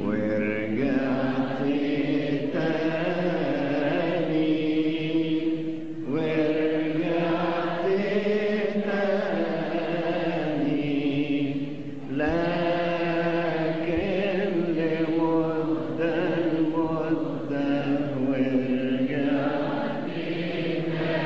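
Slow Arabic Christian hymn (tarnima) in a chant-like style. Long held melodic phrases run about six seconds each, with short breaks about six and twelve seconds in.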